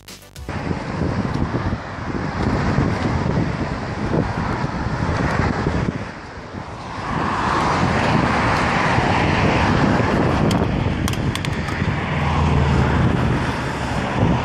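Outdoor rushing noise of passing road traffic and wind on a phone microphone. It starts abruptly about half a second in, swells for a few seconds in the middle and has a low engine-like hum near the end.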